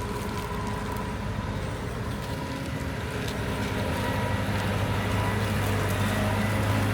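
Case IH 9260 Axial-Flow combine harvester running steadily while harvesting, with a constant low hum and a steady whine, growing gradually louder.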